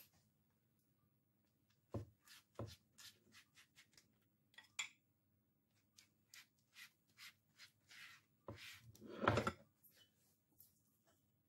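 Faint rustling and light taps of hands handling and folding thin spring roll pastry sheets, with a louder rustle and soft knock about nine seconds in.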